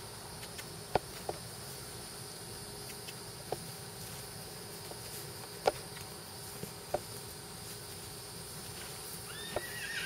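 Steady chirring of insects in the background, broken by half a dozen sharp clicks or taps. Near the end a horse starts to whinny.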